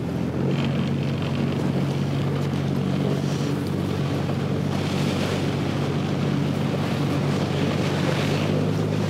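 A boat's engine running at a steady hum, with the wash of water and wind buffeting the microphone over it, gusting louder a few times.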